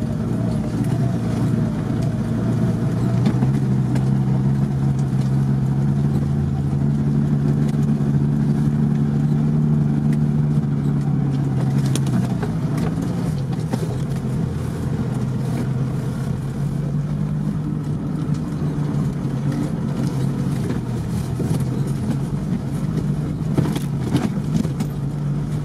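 An off-road vehicle's engine runs steadily while driving over rough ground, heard from inside the cab. The note eases off a little about halfway through, and there are a few sharp knocks near the middle and near the end.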